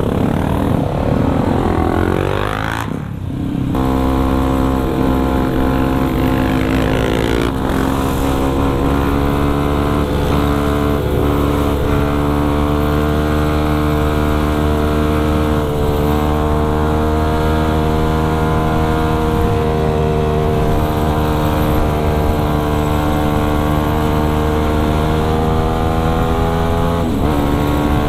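Yamaha WR155R's single-cylinder engine revving up under acceleration, with a brief drop about three seconds in as a gear is changed, then running steadily at cruising speed, its pitch shifting slightly now and then.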